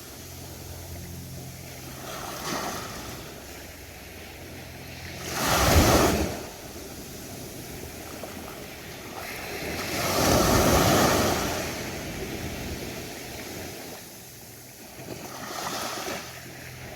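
Ocean surf on a beach: waves break four times, the loudest a short sharp crash about six seconds in and a longer rush around ten seconds, with a steady wash between. A faint low hum runs under the first five seconds.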